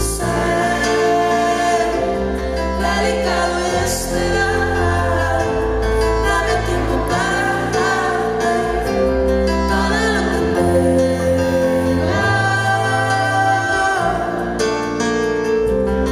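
Live pop ballad: a woman singing with electric keyboard accompaniment over sustained low bass notes.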